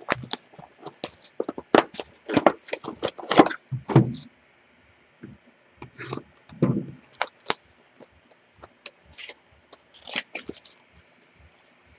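Sharp crackles and clicks of a sealed trading-card box being handled and cut open with a knife. Dense for the first four seconds, then sparser and quieter.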